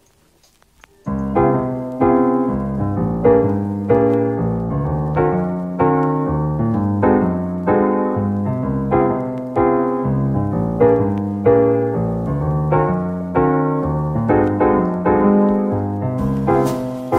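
Background piano music in a mellow lofi style, starting about a second in, with chords and notes struck at an unhurried, even pace. Light sharp clicks join near the end.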